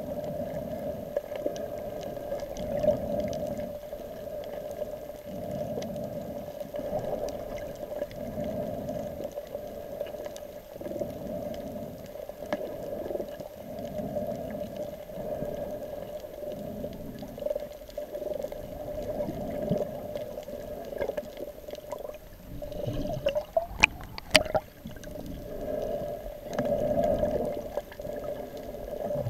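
Muffled underwater water noise picked up by a camera in its waterproof housing, with a steady hum and a low whooshing surge about every second and a half. Two sharp clicks come about 24 seconds in.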